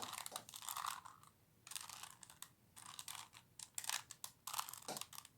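Plastic layers of a 3x3x3 Rubik's Cube being turned quickly through a solving algorithm: rapid clicking and clacking in runs, with brief pauses between runs of turns.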